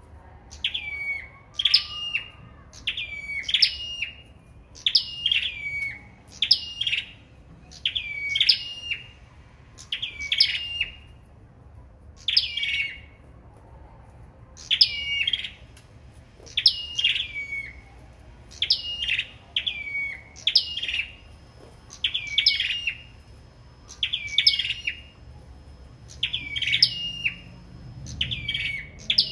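Caged small songbirds of the kind called sâu đầu đỏ in Vietnam, singing in a contest: a short, high chirping phrase repeated about once a second, with a brief pause about halfway through.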